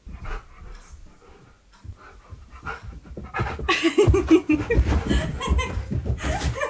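A husky-malamute cross panting as it searches close by, then, about three and a half seconds in, a woman's laughter as the dog finds her.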